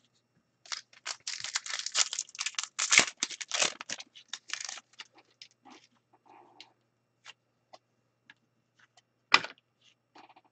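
Foil trading-card pack wrapper crinkling and tearing as it is opened, for about four seconds, followed by scattered light clicks of the cards being handled, with one sharper click about nine seconds in.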